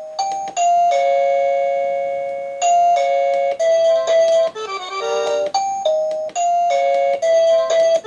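The wireless indoor chime of an XTU J7 Plus video doorbell playing short electronic ding-dong tunes, one after another as its button is pressed, each new tune cutting in abruptly.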